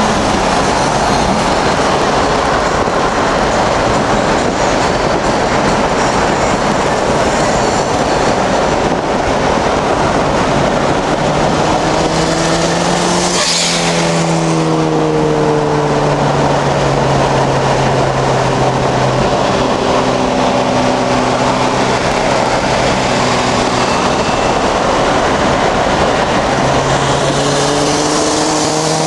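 Heavy wind and road noise at highway speed, heard from inside a moving car with the window open. About thirteen seconds in, a 1983 Volvo 242 Turbo's engine and exhaust surge past, falling in pitch, then run on steadily alongside. Near the end its engine note rises again.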